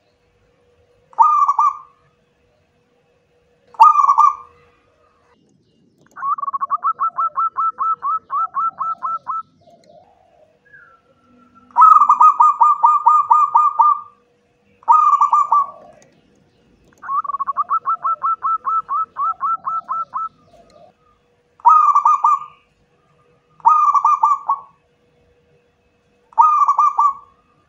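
Zebra dove (perkutut) song: loud short cooing calls alternating with three longer phrases of fast, evenly repeated staccato notes, each lasting two to three seconds.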